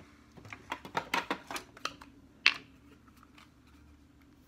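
Small hard items clicking and rattling as makeup is handled on a table, a quick run of clicks in the first two seconds and one sharper click about two and a half seconds in, then quiet room tone.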